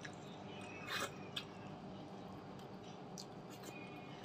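Eating sounds from a person eating curry and rice by hand: chewing and wet mouth smacks, with one sharp smack about a second in, over a steady low background hum.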